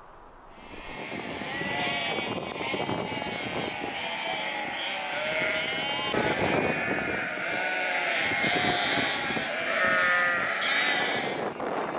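A flock of sheep bleating, many calls overlapping one another, starting up about a second in.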